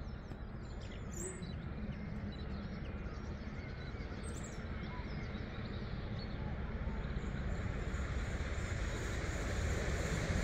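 Distant rumble of the approaching steam-hauled train behind LMS Jubilee locomotive 45596 Bahamas, growing steadily louder. A few short bird chirps sound near the start and about four seconds in.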